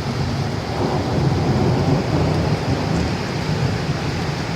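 Heavy rain pouring down, with a low rumble that swells about a second in and slowly eases.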